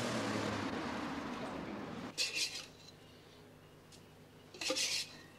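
A car driving in, a steady rushing noise that cuts off about two seconds in. Then two short bursts of glass and crockery clinking at a filter coffee machine with a glass carafe.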